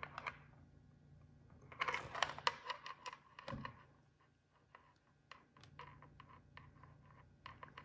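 A handbag being handled in the hands: a cluster of light clicks and taps about two seconds in, then scattered faint clicks.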